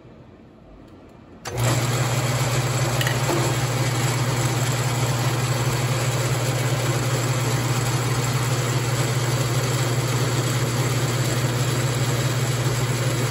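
Logan lathe switched on about a second and a half in, its motor and spindle then running steadily with a low hum as the spindle turns the milling cutter.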